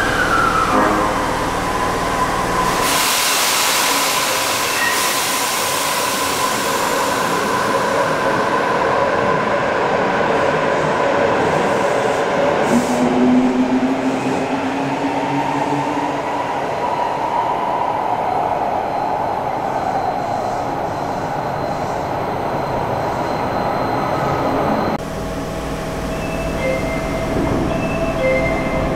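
Osaka Metro 80 series linear-motor subway train with a Hitachi IGBT-VVVF inverter pulling into an underground station: a rushing rumble as it comes in, with the inverter's whine gliding in pitch as it brakes. Near the end comes the steady hum inside a stopped car, with a few short high beeps.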